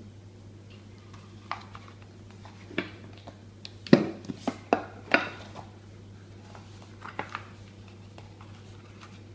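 A ceramic plate and a heavy cast metal cake mould knocking and clattering on a granite worktop as the cake is flipped out of the mould. The knocks are scattered, with the loudest cluster about four to five seconds in and a couple more about seven seconds in.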